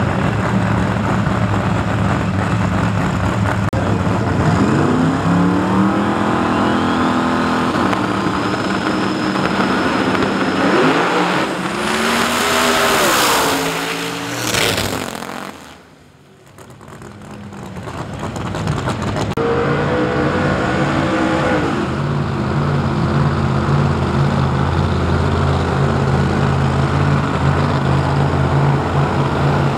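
Drag-racing car engines revving with rising pitch as they stage, then a very loud full-throttle launch about twelve seconds in that fades quickly as the cars run down the strip. Near the two-thirds mark another drag car's engine revs up and then holds a loud steady drone.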